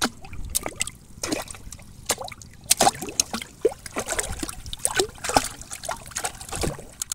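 Shallow muddy water splashing and plopping irregularly as it is churned close by, two or three quick splashes a second.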